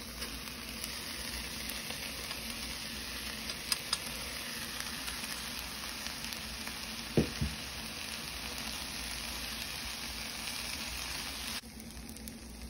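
Pineapple, peppers, onion and cooked rice sizzling in hot oil in a frying pan, stirred with a wooden spoon. There is one sharp knock about seven seconds in, and the sizzle drops suddenly quieter near the end.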